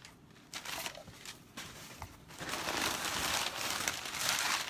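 Packaging crinkling and rustling as a box is unpacked by hand: a few short rustles, then steady crinkling from about halfway through.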